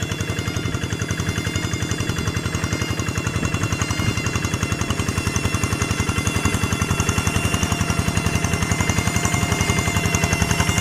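Single-cylinder diesel engine of a walk-behind hand tractor running steadily under load while tilling a rice paddy, a rapid even chug with a steady whine above it, growing slightly louder about halfway through.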